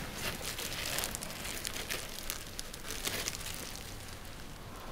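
Irregular crinkling and small clicks of a container or packet being opened and handled by hand.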